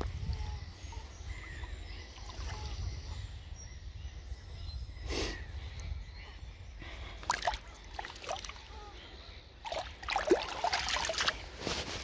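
Shallow water sloshing and splashing as a pike held by the tail is released and swims off, with a few sharp splashes, the last and loudest cluster near the end.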